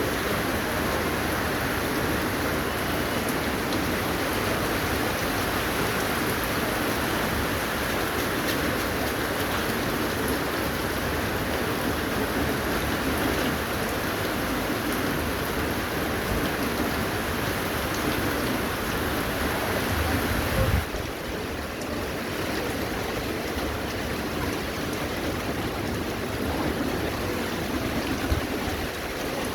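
Steady rain falling, an even hiss with no clear drops standing out. About two-thirds of the way through it becomes a little quieter and duller.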